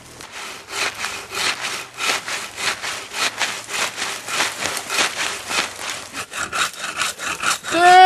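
Hand saw cutting through the trunk of a small conifer, with quick, even back-and-forth strokes, about three a second, starting about a second in.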